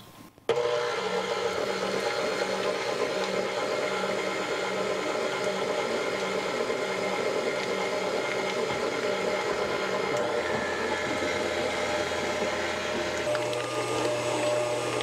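Stand mixer switched on about half a second in, its motor running steadily as the wire whisk beats cream cheese in the steel bowl.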